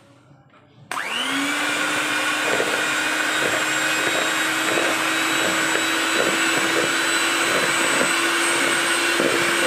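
Electric hand mixer switched on about a second in, its motor spinning up with a brief rising whine and then running steadily as the twin beaters whip non-dairy whipping cream in a plastic bowl.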